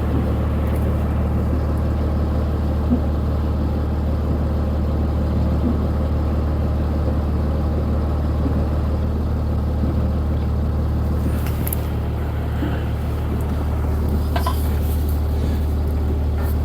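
Vehicle engine idling with a steady low hum, and a couple of faint clicks near the end.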